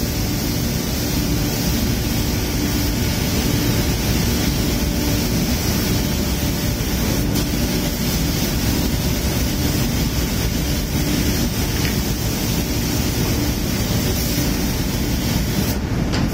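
Steady noise of a paint spray booth at work, with a compressed-air spray gun hissing as paint is sprayed. Loud, low, unbroken machinery rumble under the hiss.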